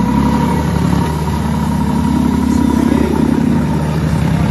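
Tiller-steered outboard motor running under throttle as a small jon boat pulls away, with a steady whine over the engine note that swells briefly around the middle.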